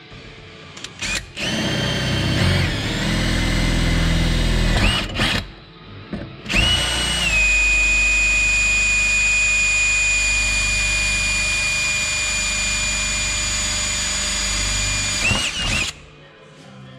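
Cordless drill drilling into metal: a short run of a few seconds, a couple of quick trigger blips, then a long run of about nine seconds with a steady whine that steps down slightly soon after it starts.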